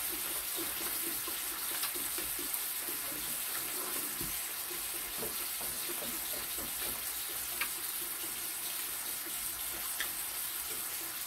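Pork belly slices sizzling on a grill pan over a portable gas stove, a steady hiss with a few faint clicks.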